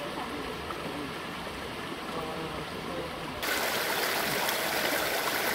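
Shallow rocky creek flowing over stones, a steady rush of water that gets suddenly louder about three and a half seconds in.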